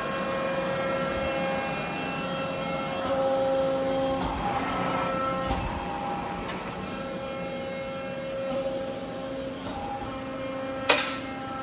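Accurpress Advantage 130-ton CNC hydraulic press brake running, its hydraulic unit giving a steady hum and whine whose tones drop out and return every second or two. One sharp clank near the end.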